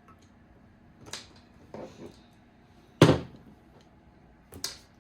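Hands handling small RC kit parts and tools on a work surface: a few light clicks and knocks, one much louder sharp knock about three seconds in, and a quick double click near the end.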